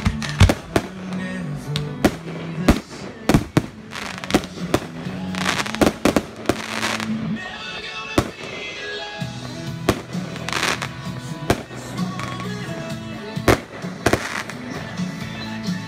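Aerial fireworks going off: repeated sharp bangs of launching and bursting shells, with hissing, crackling bursts from crackle stars three times, about five, ten and fourteen seconds in. Music plays underneath throughout.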